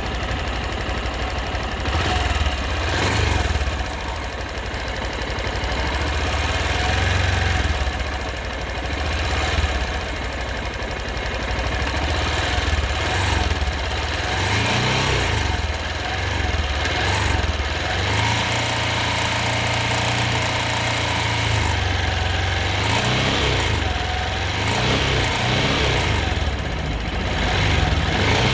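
Honda XRE 190's single-cylinder engine running and revved up several times, falling back between blips. The owner reports an intermittent noise from the engine under hard acceleration that he cannot identify.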